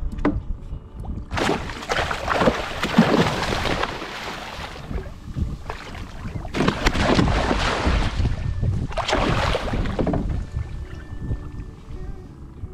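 Water splashing hard at the side of a kayak as a large hooked fish thrashes at the surface, in three rough bursts of a few seconds each.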